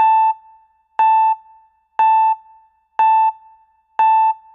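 Electronic keyboard beep: one short, bright note struck once a second, five times, each dying away quickly.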